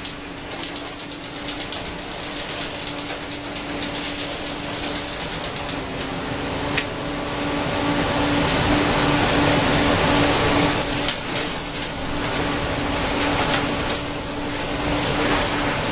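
Vacuum excavation truck running with its large suction hose down in the vault: a steady rushing noise with a constant hum, growing louder about six seconds in.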